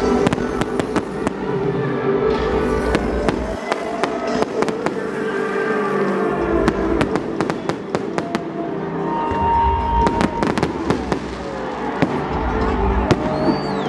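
Fireworks going off in rapid, irregular bangs and crackles, with music playing underneath.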